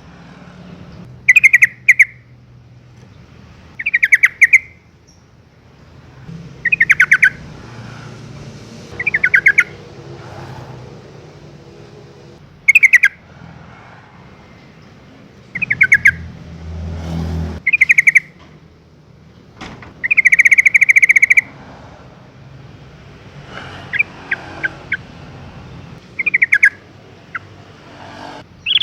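Yellow-vented bulbul giving short bursts of rapid, chattering notes, one burst every two to three seconds, with a longer burst about twenty seconds in. A low rumble runs underneath and swells briefly a little past halfway.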